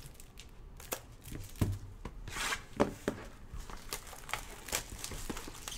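Plastic wrap crinkling and tearing as a sealed box of trading cards is opened by gloved hands, with a few light knocks of cardboard being handled. The longest tearing sound comes about two and a half seconds in.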